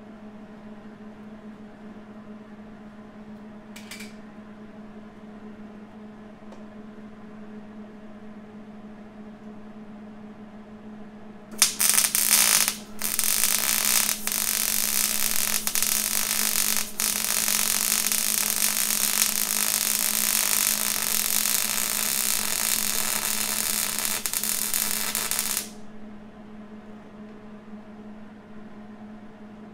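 Electric arc welding on steel: the arc is struck about twelve seconds in, breaks off briefly, then runs as a steady crackling sizzle for about twelve seconds before cutting off abruptly. A steady low hum runs underneath throughout.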